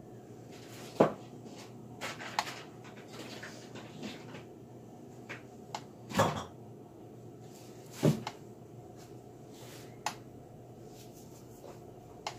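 Scattered household knocks and clunks at uneven intervals, the sharpest about a second in and a longer one about six seconds in, over a steady low hum.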